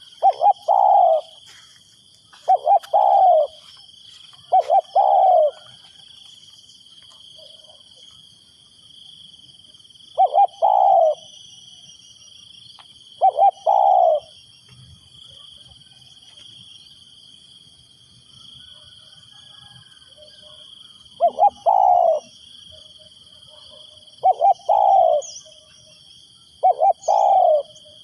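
Spotted dove cooing: about eight short coo phrases a few seconds apart, with a longer gap of several seconds mid-way. Steady high insect buzzing runs underneath.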